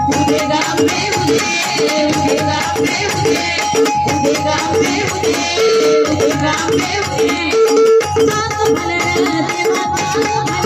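Devotional gondhal music: pakhawaj and tabla drumming a steady beat under a harmonium melody, with small hand cymbals jingling along.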